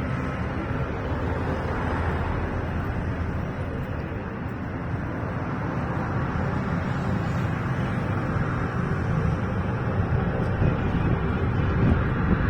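Aircraft engine noise: a steady low rumble with faint engine tones, swelling slightly toward the end, with wind buffeting the microphone.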